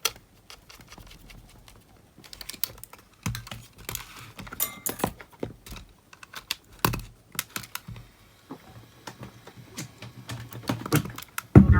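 Small screws being driven into the plastic case of a Panasonic RQ-S60 cassette player with a screwdriver, heard as irregular clicks and light taps of metal on plastic.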